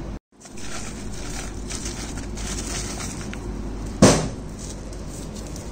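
Steady background noise with light clatter, briefly cut out just after the start, and one loud sharp knock about four seconds in.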